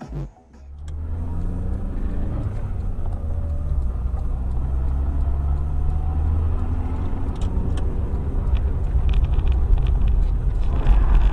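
A car driving, heard from inside by a dashcam: a steady low engine and road rumble that comes in about a second in, with a few faint ticks.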